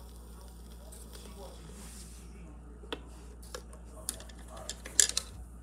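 Portable record player after the 45 rpm single has finished, with a steady low hum and faint hiss. From about three seconds in come a handful of irregular clicks and knocks as the tonearm and record are handled, the loudest a sharp click about five seconds in.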